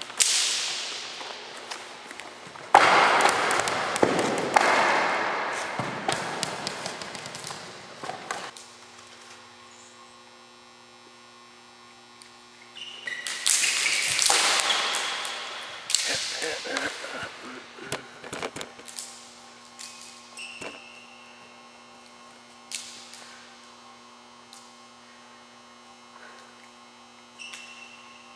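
A steady electrical hum, with scattered sharp taps and knocks of plastic juggling rings and clubs being caught. Two long, loud spells of noisy sound, one in the first third and one in the middle, are the loudest thing heard.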